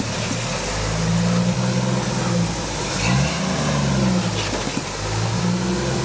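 Jeep Wrangler YJ rock crawler on 42-inch tires climbing a rock ledge, its engine revving up and easing off several times under load. The revs rise about a second in, drop, climb again around the middle and once more near the end.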